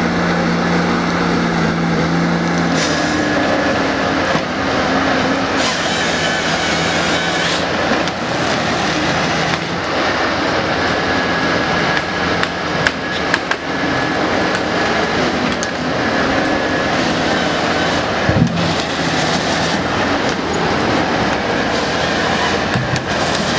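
Ponsse Ergo forest harvester at work: its engine and hydraulics run loud and steady while the harvester head grips, feeds and cuts tree stems. Scattered knocks and cracks from the head and the timber come through, most of them in the middle of the stretch and one sharp one near the end.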